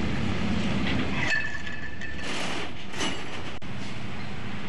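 Steady low engine hum. About a second in there is a brief high-pitched squeal with a few metallic clinks, and a single sharp click past the middle.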